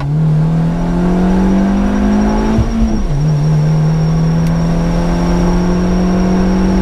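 Opel Corsa C GSi's four-cylinder engine pulling hard under acceleration, heard from inside the car: the revs climb, drop sharply with an upshift about three seconds in, then build again in the next gear.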